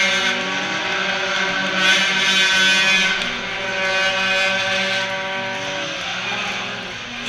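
Music playing over an ice rink's PA, held notes that step from pitch to pitch, with crowd noise swelling and fading beneath it.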